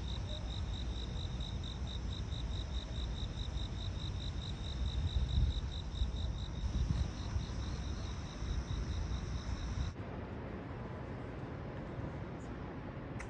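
Night insects chirping outdoors, a high pulsed chirp about three times a second, over a low rumble. About ten seconds in the sound cuts off abruptly to a quieter steady hum.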